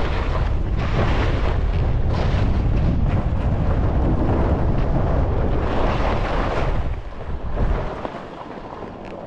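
Skis scraping and chattering over snow on a steep mogul run, with wind buffeting the camera microphone as a heavy rumble. It drops away about seven to eight seconds in.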